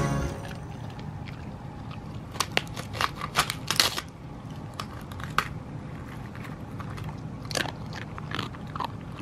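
A husky chewing a dried fish skin treat with its mouth open, with irregular crisp crunches and crackles as the skin breaks. The crunching comes in bunches, thickest a few seconds in and again near the end.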